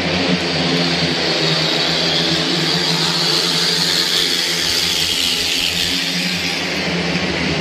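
Speedway bikes' 500 cc single-cylinder methanol engines racing round the track, a loud high-pitched howl that swells midway through as the pack passes and then eases off.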